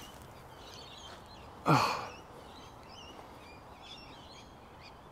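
Small birds chirping over faint open-air background noise. About two seconds in there is one short, louder breathy sound that falls in pitch.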